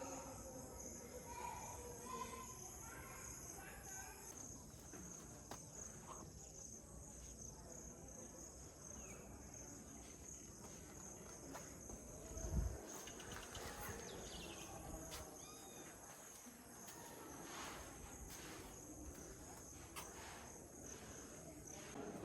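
Faint, steady high-pitched insect chorus, with a single low thump about halfway through.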